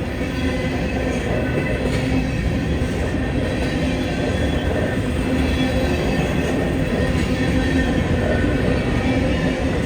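Freight train cars rolling past on the rails: a steady, continuous rumble of wheels on track.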